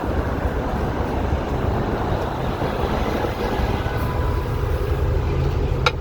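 Steady rumble of city street traffic with wind buffeting the microphone, and a single sharp click near the end.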